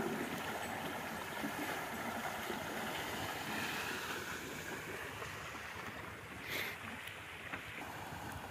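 Water splashing and pouring steadily from the buckets of a bullock-driven Persian wheel into an irrigation channel, with one brief sharper sound about two-thirds of the way through.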